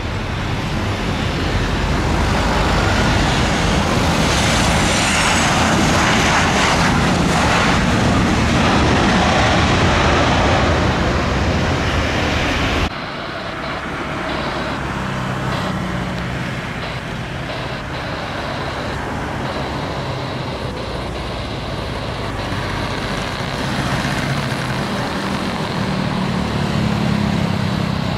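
Jet airliner on low final approach, a Super Air Jet Airbus A320-family jet: a loud engine roar that builds and passes over, with a high fan whine sliding down partway through. About 13 s in, it cuts abruptly to a quieter steady jet rumble mixed with road traffic as a four-engine jumbo jet approaches, its low drone swelling near the end.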